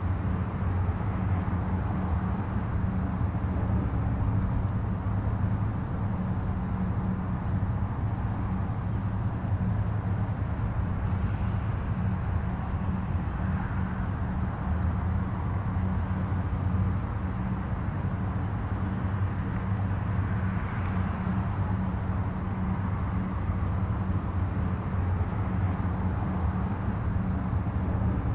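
Distant highway traffic: a steady low rumble of many vehicles' tyres and engines, swelling gently now and then as nearer vehicles pass.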